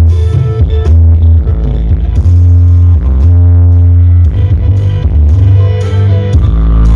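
Music played at very high volume through a large outdoor sound-system rig of sixteen subwoofers during a sound check, the deep bass dominating.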